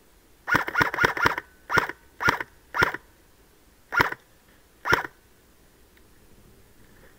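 Airsoft rifle firing nine single shots, the first four in quick succession and the rest more slowly spaced, each a sharp crack with a short ringing note.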